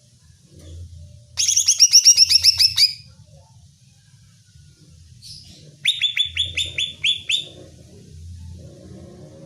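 Cucak ijo (green leafbird) calling in two fast runs of sharp, repeated notes that each fall in pitch, one about a second in and one about six seconds in: the fired-up, challenging song used to provoke another cucak ijo. A steady low hum runs underneath.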